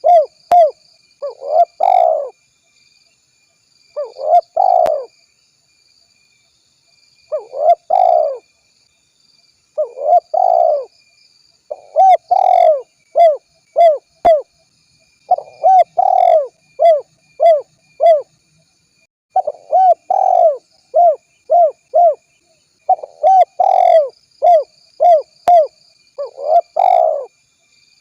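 Spotted dove (dekukur) cooing: phrase after phrase of short, arching coos, repeated with brief pauses between groups. Faint steady high-pitched tones run underneath.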